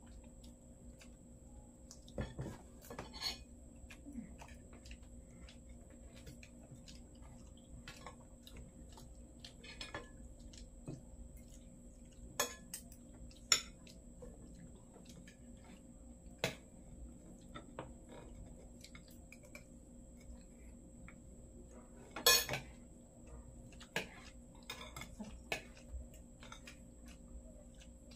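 Spoons and forks clinking and scraping on plates and a bowl during a meal, in scattered light clicks with a few sharper clinks, the loudest about three-quarters of the way through.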